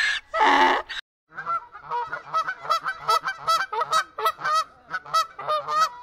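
An alpaca's call ending about a second in, then, after a brief gap, a rapid series of short, repeated animal calls, about three or four a second, each with a quick bend in pitch.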